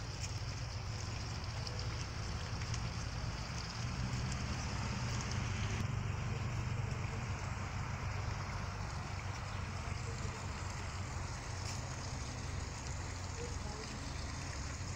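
Wind buffeting a phone microphone: a steady, gusty low rumble with an even hiss over it, swelling a little about four seconds in.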